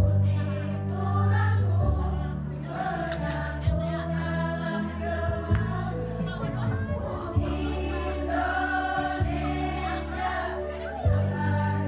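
Women's choir singing with instrumental accompaniment, sustained bass notes changing every second or two beneath the voices.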